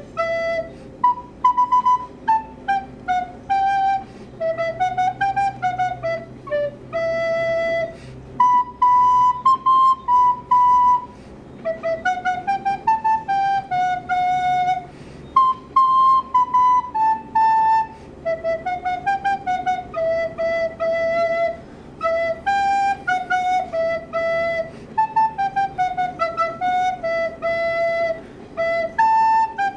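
Recorder improvising a melody of short notes in stepwise rising and falling phrases separated by brief pauses, over a faint low hum.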